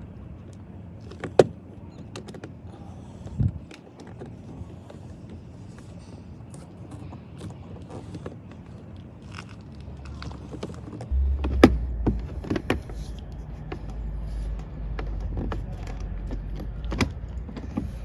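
A plastic trim cover on a Nissan 350Z door panel being worked loose by hand: scattered plastic clicks and taps, with a sharp click about a second and a half in and another about twelve seconds in. A low rumble of handling runs under the second half.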